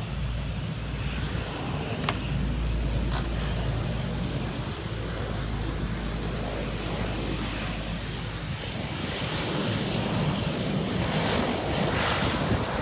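Dash 8 turboprop airliner at takeoff power on its takeoff roll, a steady propeller and engine drone that grows louder over the last few seconds. A low engine hum from an airport ground vehicle passing close underlies the first half, with two sharp clicks about two and three seconds in.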